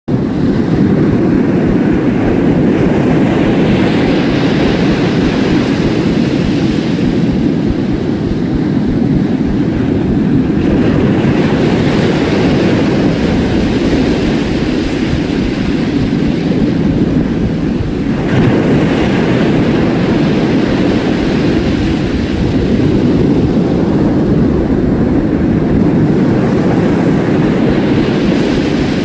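Heavy surf breaking on a shore: a continuous low rush of water, with the hiss of a breaking wave swelling and fading about every seven seconds.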